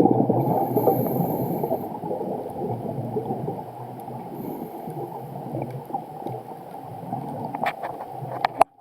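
Scuba diver's exhaled regulator bubbles gurgling and crackling underwater, loudest at first and fading away. A couple of sharp clicks come near the end, and then the sound cuts off suddenly.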